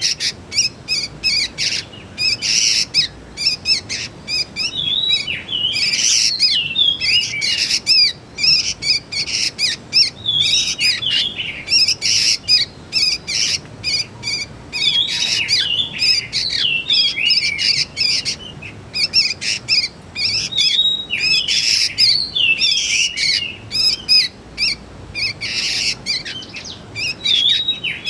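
Young sooty-headed bulbuls calling: a dense, continuous stream of short, high chirps with hardly a pause.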